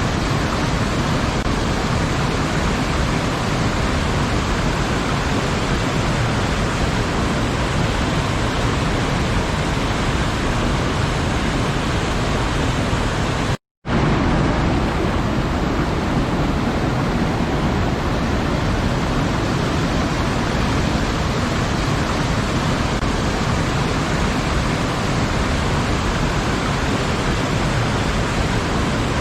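Waterfall rushing steadily, a dense even roar of falling water, broken by a brief dropout to silence about halfway through before it resumes.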